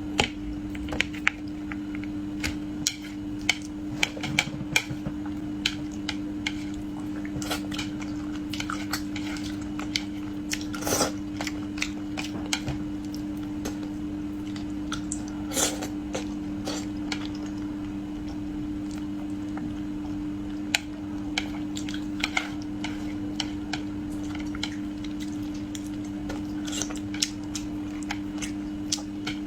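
A person eating braised carp: utensils clicking against a bowl or plate at irregular intervals, with chewing and biting. A steady low hum runs underneath.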